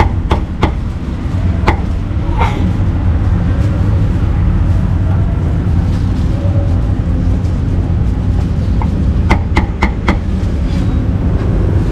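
Meat cleaver chopping cooked pork offal on a wooden chopping board: a few sharp knocks in the first couple of seconds, then a quick run of about four strikes near the end, all over a steady low rumble.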